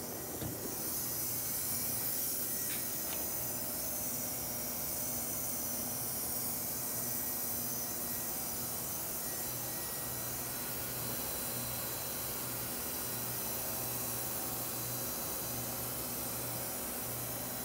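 Wasino G07-F CNC gang-tool chucker running under power: a steady machine hum and an even high hiss, with a few light clicks in the first three seconds.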